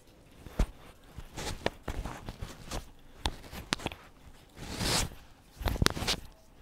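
Microphone handling noise: irregular knocks and scraping rustles as the mic is jostled while sunscreen is rubbed into the face, with a sharp knock just after the start, a longer rustle about five seconds in and a cluster of knocks near the end.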